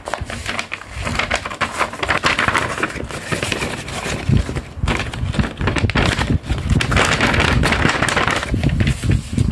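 Paper rustling and crinkling close to the microphone as a printed paper envelope is handled and opened and a sheet of paper-doll stickers inside it is moved about.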